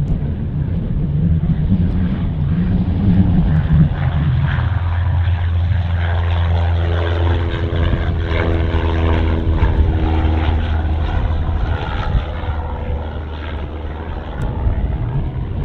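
Single-engine high-wing Cessna at full takeoff power: the piston engine and propeller drone steadily as it rolls, lifts off and climbs away. A second, higher tone is strongest about halfway through, and the sound softens a little near the end.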